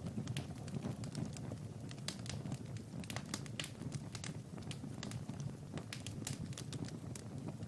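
Wood fire in a fireplace crackling, with many irregular sharp pops over a low steady rumble.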